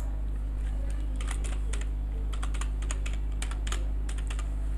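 Typing on a computer keyboard: a quick, irregular run of keystrokes starting about a second in, over a steady low hum.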